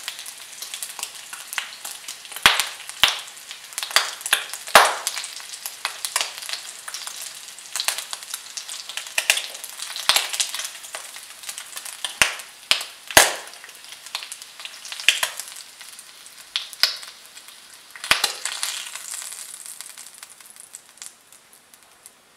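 Thin bacon slices frying in hot fat in a frying pan: a steady sizzling hiss broken by frequent sharp pops of spitting fat, growing quieter near the end.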